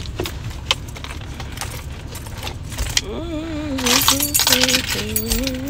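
Small metal objects jangling and clicking as a handbag is handled, busiest from about four seconds in. From about three seconds in, a woman hums a short wavering tune over it.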